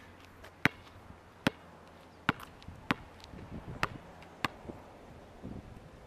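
A basketball bouncing on a hard court surface: six sharp smacks, irregularly spaced a little under a second apart.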